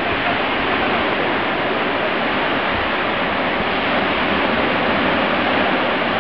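Baltic Sea surf breaking on a sandy beach: a steady, unbroken wash of noise.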